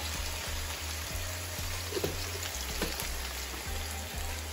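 Sliced onion frying in hot oil in a non-stick frying pan, a steady sizzling hiss just after the onion has gone in.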